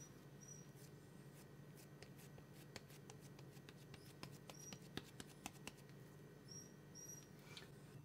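Near silence: faint soft clicks and pats of hands shaping and flattening a ball of mashed-potato dough, with a low steady hum and a few brief, faint high chirps.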